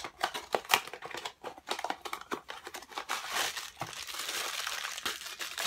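Mystery-mini blind-box packaging being opened by hand: a run of sharp crackles and tearing, then denser, steady crinkling from about three seconds in.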